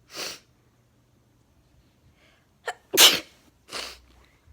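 A girl sneezing in a sneezing fit. There is one burst just after the start. About three seconds in comes a quick catch, then the loudest sneeze, followed by a softer breathy burst.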